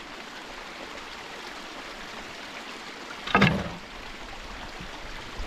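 Small stream running steadily beneath the waterwheel stand, with one loud knock about three and a half seconds in, heard as the wooden wheel is handled on its wooden frame.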